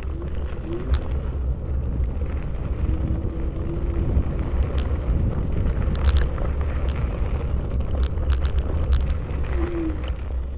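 Battery-powered ride rumbling and rattling over rough, bumpy trail ground, with a steady low rumble and many sharp knocks and jolts. It is rough enough that the rider fears the jolting may have damaged the battery.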